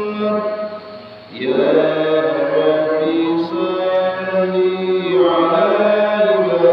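A man singing sholawat, Islamic devotional praise of the Prophet, in long held notes with melodic ornaments. The voice breaks off briefly about a second in, then takes up the line again.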